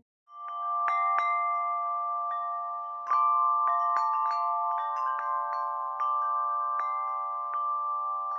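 Background music: bell-like struck notes ringing over a steady held chord.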